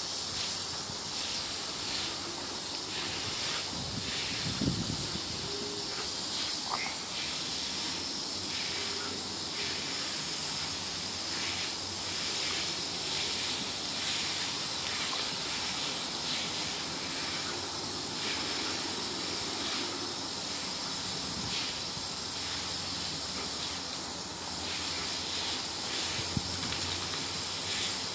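Steady hiss of water jetting up from a garden hose, broken by repeated short splashes as a dog snaps and bites at the spray.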